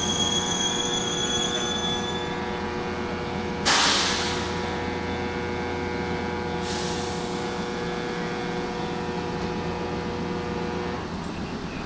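Sanyo Electric Railway train at the platform: a high squeal fades out in the first two seconds, then a sudden loud hiss of air about four seconds in and a fainter one near seven seconds, typical of air brakes venting on a stopped train. Under it the train's electrical equipment hums steadily, falling away about eleven seconds in.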